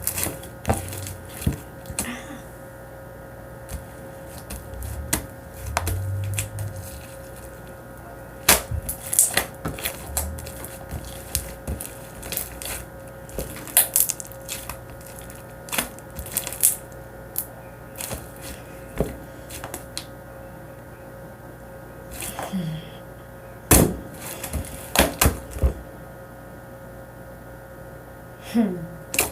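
Slime being kneaded and squeezed by hand, giving irregular sticky clicks and small pops, over a faint steady hum.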